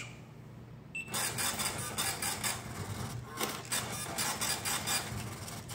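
Short beep about a second in, then the field scale's built-in ticket printer runs for about four seconds with a brief pause partway. It is printing a weight ticket followed by a time-stamp ticket, the sign that the scale is in lunch (last-bucket) mode.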